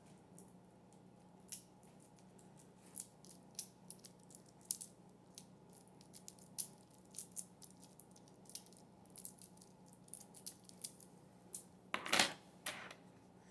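Plastic Infinity Cube being folded over and over in the hands, giving soft, irregular clicks as its hinged blocks snap together, about one or two a second. A louder clatter of knocks comes near the end.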